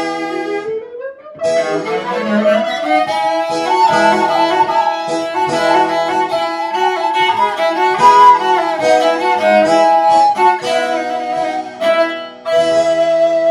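Baroque chamber music played live by a trio of recorder, viola da gamba and harpsichord, with the bowed gamba line prominent. The playing breaks off briefly about a second in and again near the end.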